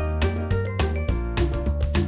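Background music with a steady upbeat rhythm and a bass line.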